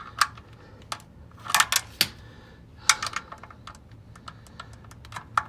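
Click-type torque wrench on the oil drain plug: a string of sharp, irregular metallic clicks, a few bunched together, as the plug is re-checked at 20 foot-pounds.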